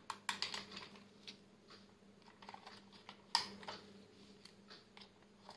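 Faint, scattered plastic clicks and taps as foam suction-cup darts are pushed into the dart launcher on a toy robot's arm. The sharpest click comes a little past three seconds in.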